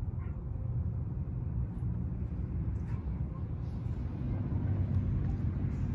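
Steady low rumble of a heavy truck's engine running, even and unbroken.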